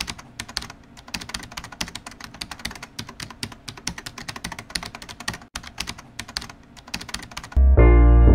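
Rapid, irregular keyboard-typing clicks, a sound effect for text appearing on screen. Near the end, loud music with a heavy bass line cuts in suddenly.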